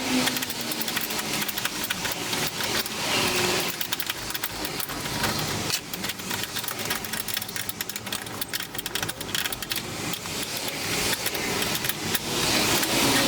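A workshop power tool running, with a steady scraping hiss and many rapid clicks and ticks over it.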